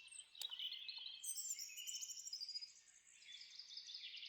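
Several songbirds chirping and trilling, with a single sharp click about half a second in.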